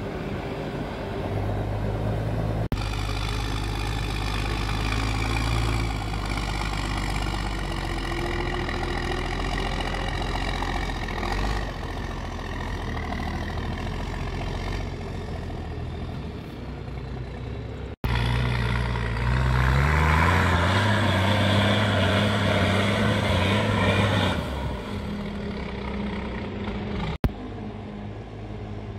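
Diesel engine of a MAN truck-trial truck running and revving as it drives over rough off-road terrain. The engine pitch rises and falls with the throttle and is highest a little past the middle. The sound is made of several joined shots with sudden cuts between them.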